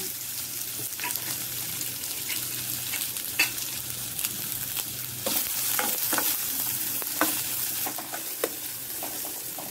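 Chopped onions sizzling in hot oil in a steel kadai, with a metal spoon scraping and clicking against the pan now and then as they are stirred.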